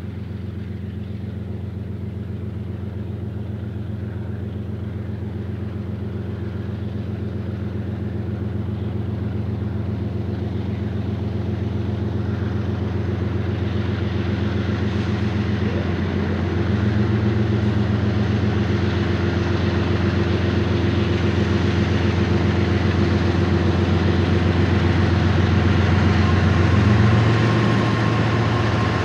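BNSF diesel-electric locomotive engine running, growing steadily louder as it approaches. Its low engine note steps up about halfway through and shifts again near the end, where it is loudest.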